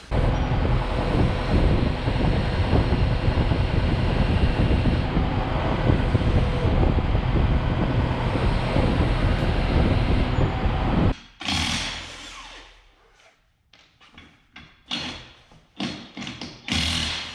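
Skid steer engine running hard and steady for about eleven seconds, as when lifting the machine with its bucket; it cuts off suddenly, followed by a string of short separate bursts and knocks.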